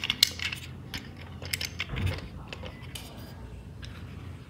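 Plastic toy train cars and track being handled by hand: scattered clicks and taps of plastic on plastic as the cars are set back onto the rails.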